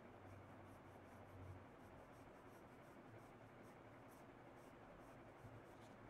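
Faint scratching of a graphite pencil on drawing paper: a run of short strokes as lines are drawn.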